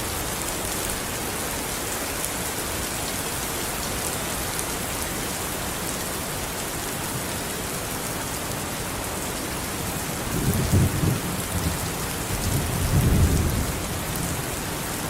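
Steady rain falling, with two low rolls of thunder in the last third, louder than the rain.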